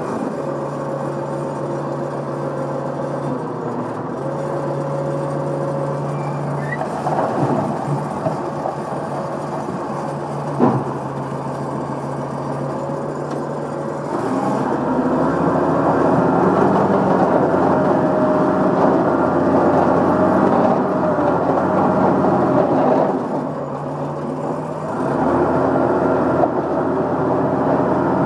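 Compact track loader's diesel engine running steadily, heard from inside the operator's cab. About halfway through it grows louder and rougher, dips briefly near the end, then picks up again. There is one sharp knock about a third of the way in.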